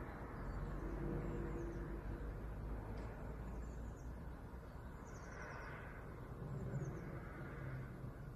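Low, steady droning hum of unknown origin coming from the sky, of the kind called an 'apocalyptic trumpet' sound. Its held tones fade about two seconds in and a deeper tone swells near the end. Faint high chirps of small birds sound every second or so.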